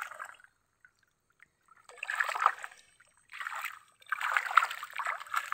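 Water splashing and streaming off a collapsible net fish trap as it is lifted out of shallow swamp water, in three bursts, the first about two seconds in and the last the longest.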